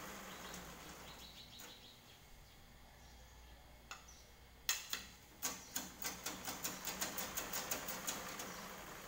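Spoon clicking against a small bowl in a quick series of light taps, about four a second, starting about five seconds in after a quieter stretch.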